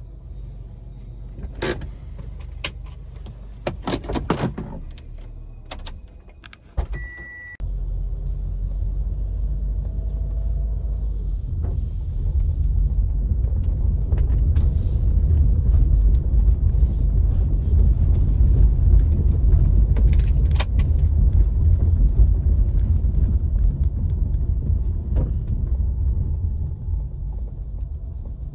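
Car on the move, a loud low rumble of road and driving noise that swells a few seconds in and eases off near the end. It is preceded by a few sharp clicks and a short high beep.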